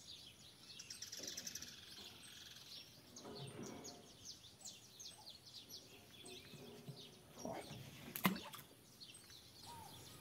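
Faint birds chirping: many short, high, quickly falling chirps repeating throughout. A single sharp click about eight seconds in is the loudest sound.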